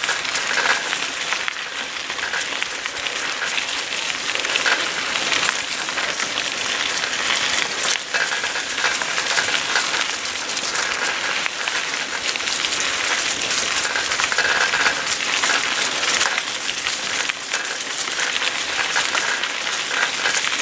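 Bicycle tyres rolling over a gravel trail strewn with dry fallen leaves: a steady, dense crunching and crackling.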